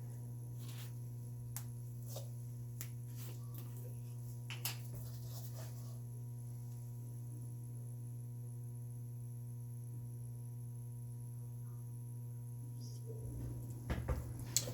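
Steady low hum, with a few faint light clicks and taps in the first several seconds and some rustling handling noise near the end.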